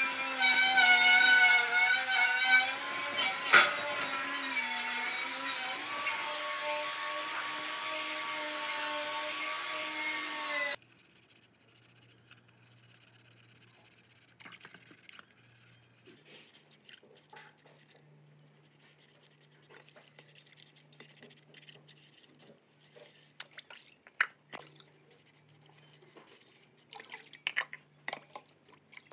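Angle grinder with a red abrasive disc running against the steel air-compressor tank, stripping rust and paint, its whine shifting in pitch under load; it cuts off suddenly about eleven seconds in. After that, faint water splashing and brush scrubbing as the compressor's plastic wheels with rubber tyres are washed in a metal bowl.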